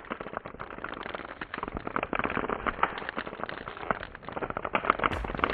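Dense, irregular crackling and popping, a crackle sound effect laid over the time-lapse, with a few sharper clicks near the end.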